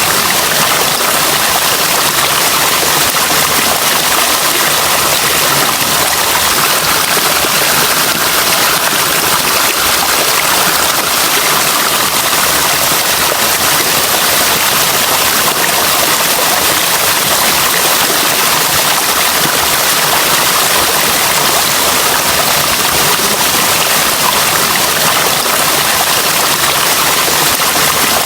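Natural running water, a steady, even rush with a bright hiss and no breaks or changes.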